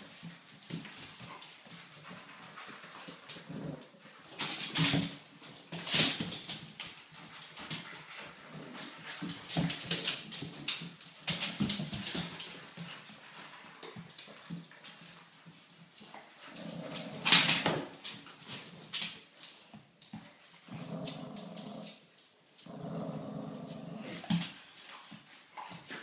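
Dogs (white bully-type dogs and Yorkshire terriers) play-fighting: stretches of low growling and a few short, sharp barks, the loudest about seventeen seconds in.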